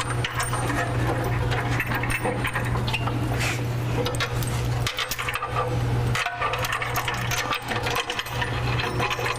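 Metal clicking and clinking of bolts, washers and hand tools as bolts are started into a steel bumper. Under it runs a steady low hum.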